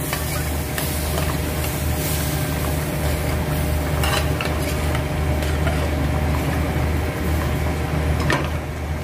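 A metal spoon stirs evaporated-milk sauce in a stainless-steel frying pan, clinking and scraping against the pan a few times over a light sizzle and a steady low hum.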